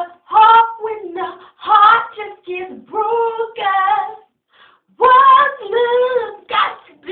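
A single voice singing unaccompanied in a high register, in held, bending phrases with short breaths between them.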